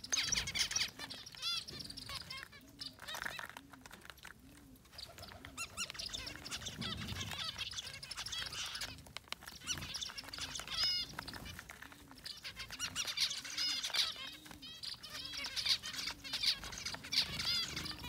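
A flock of zebra finches calling while they feed: many short, high chirps overlapping, busiest at the start, in the middle and over the last few seconds.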